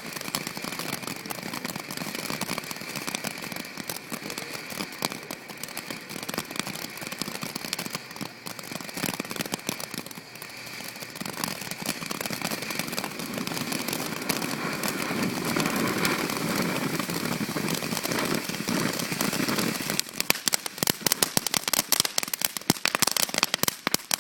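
Consumer fireworks going off: a steady hiss with continuous fine crackling. About twenty seconds in, this gives way to a fast run of sharp, loud pops, like a firecracker string or crackling barrage.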